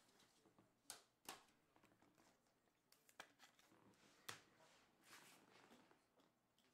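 Faint handling of trading cards: a few sharp clicks and a soft rustle as cards are flipped and slid, all at a very low level.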